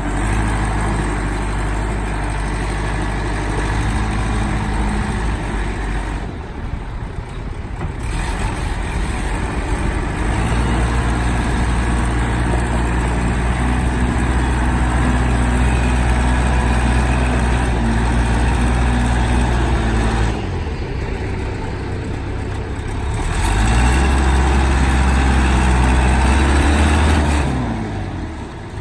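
John Deere 210C backhoe's diesel engine running, its speed and load rising and falling several times. It drops back briefly about six seconds in and again about twenty seconds in, runs louder for a few seconds near the end, then falls away.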